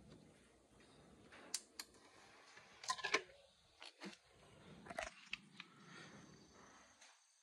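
A DVD player's disc tray closing on a loaded disc and its controls being pressed: a scattered series of light mechanical clicks and clunks, the loudest a quick cluster about three seconds in.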